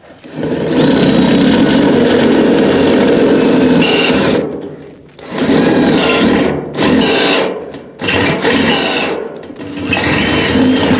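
DeWalt cordless drill boring a hole through a steel bracket on a steel tank. It runs steadily for about four seconds, then in several short bursts with brief pauses between them.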